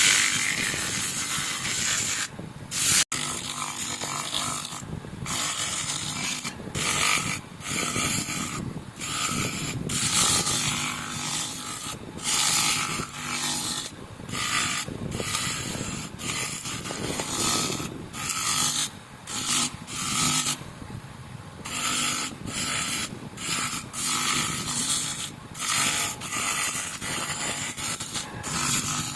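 Abrasive rubbing on the metal of a rear drum brake cover, in repeated strokes about once a second with short breaks between them, as the cover is sanded and polished.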